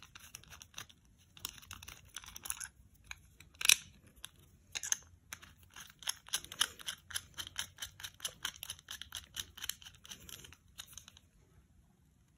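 Small screwdriver tightening machine screws and nuts on a 3D-printed plastic phone holder: a string of quick, light clicks and scrapes, thickest in the second half, with one louder click about four seconds in.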